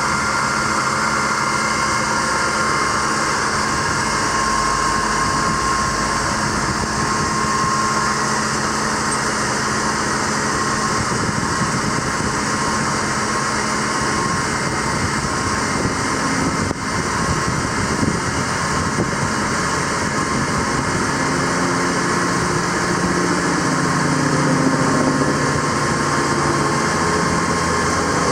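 The truck's 6.6-litre Duramax diesel runs steadily with a high steady whine over it. The low hum shifts pitch a little in the last third.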